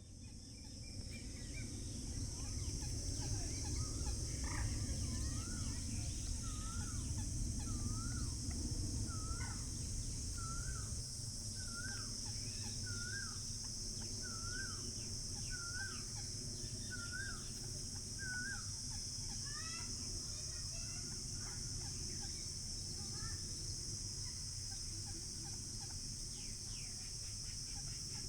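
Rural pond-side ambience: a steady high insect drone with a bird repeating one short rising-and-falling call about once a second for some fifteen seconds, among other scattered bird calls. A low rumble underneath drops away about eleven seconds in.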